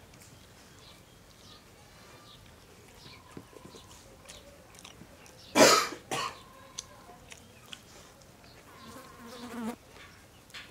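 A man coughs: one loud cough about halfway through, followed quickly by a shorter second one, amid small clicks from eating by hand. A short throaty sound comes near the end.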